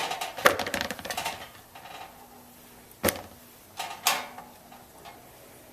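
Kitchen clatter of cut zucchini pieces being moved into a bowl, then two sharp knocks about a second apart.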